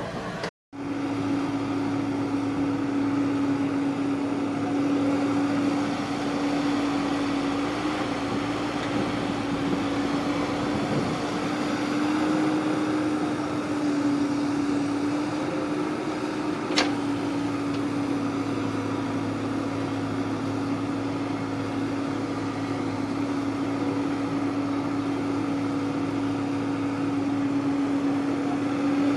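Kubota rice-harvesting machine's engine running steadily, a constant hum at one pitch. The sound cuts out for a split second near the start, and there is a single sharp click about 17 seconds in.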